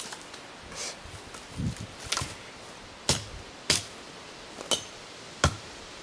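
A series of sharp, short knocks, about one a second at uneven spacing, with one duller low thump nearly two seconds in, over a steady hiss.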